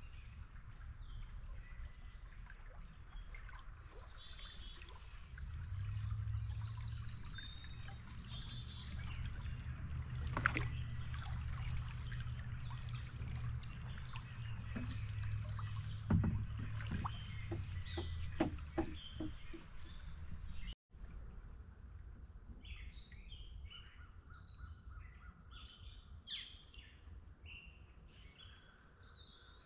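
Songbirds chirping and singing over the sounds of a kayak being paddled: soft trickling and splashing of water off the paddle, with a quick run of light knocks a little past halfway. The birdsong is clearest near the end.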